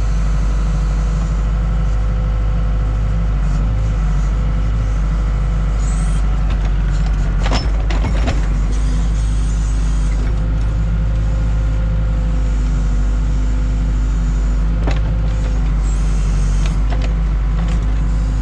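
Case 580K backhoe's diesel engine running steadily while the backhoe digs, with a faint steady whine over it and a few clanks about halfway through and again later.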